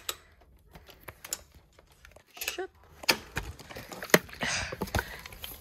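Scattered light clicks and taps from plastic toy figures being handled, with quiet gaps between them.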